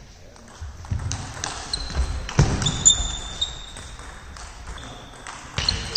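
A table tennis ball clicking sharply off bats and the table several times in the first three seconds, with short high squeaks from sports shoes on the hall floor.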